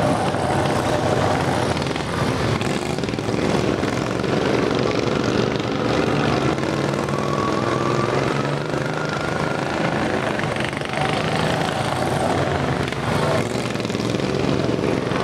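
Small engines of racing riding lawn mowers running hard, their pitch sliding up and down as they speed up and slow down around the track.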